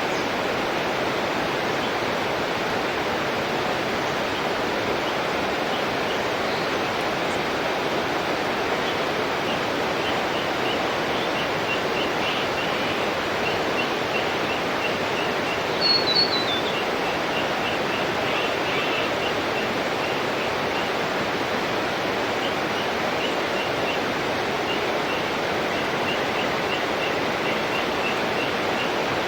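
Steady rushing of a waterfall. Over it a bird gives a short call of a few quick notes stepping down in pitch, once just at the start and again about halfway through, with faint short high chirps repeating through the second half.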